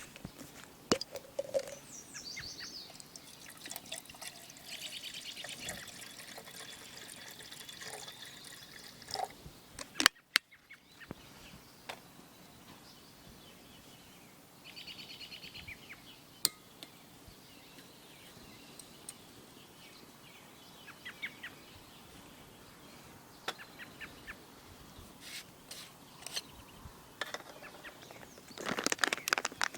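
Birds chirping on and off, with scattered sharp clicks and one loud knock about ten seconds in.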